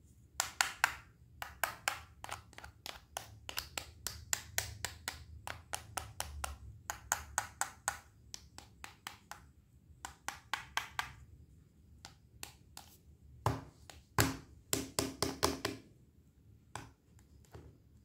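Play-food cutting set: a wooden toy knife tapping and clicking against a hard plastic toy tomato in the hands, in quick runs of sharp clicks. A few heavier knocks come about three quarters of the way through.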